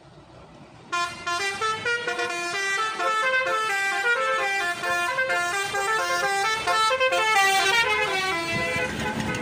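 A bus's telolet horn, a set of electrically switched air-horn trumpets, playing a fast melody of short stepping notes. It starts about a second in and keeps on for about eight seconds.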